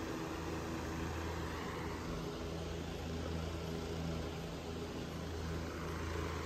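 Steady low mechanical hum with a faint hiss over it, unchanging throughout.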